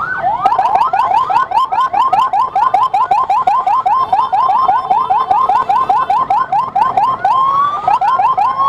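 Emergency-vehicle siren on its yelp setting: a rapid rising whoop repeated about five times a second, with one slower rise near the end and a slow rising wail starting right at the end. It is clearing traffic for an ambulance escort.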